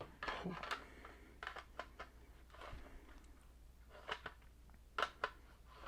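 Faint handling noise from plastic smoke alarms being turned over in the hands: scattered light clicks and rustles in small clusters, about a second apart.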